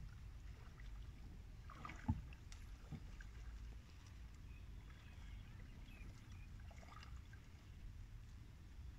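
Low, steady wind rumble on the microphone, with faint scattered ticks and a single sharp knock about two seconds in.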